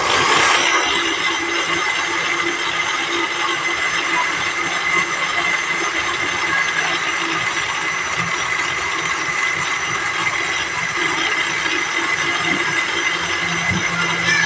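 Electric kitchen blender switched on, starting abruptly and running steadily with a constant whine as it blends the lemon, strawberry and honey juice mixture.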